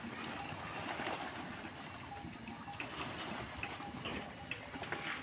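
Rustling and scraping as coconut saplings in plastic grow bags are handled and moved, over an outdoor background of faint bird calls.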